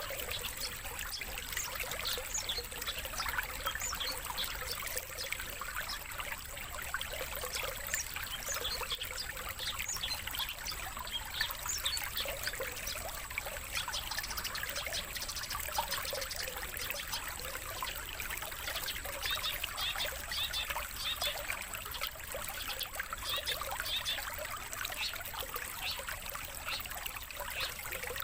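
Water trickling steadily, with many short, high bird chirps and calls scattered densely over it throughout.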